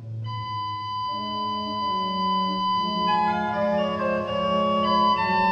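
Organ playing slow sustained chords, notes entering one after another and the sound swelling louder as it goes.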